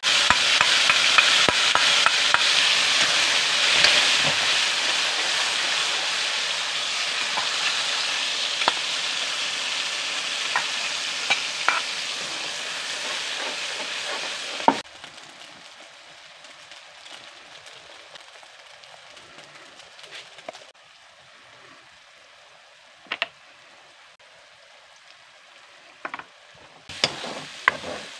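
Food frying in hot oil in a steel kadai. A loud sizzle sets in suddenly and slowly fades, then drops abruptly to a faint sizzle about halfway through. Throughout, a steel spoon clinks and scrapes against the pan as it stirs, with a flurry of clinks near the end.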